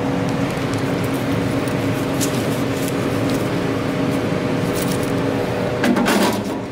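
Steady low machine hum, with light clicks and rustling as cash is handled. About six seconds in, a short louder rattle as the vending machine's coin box is slid out.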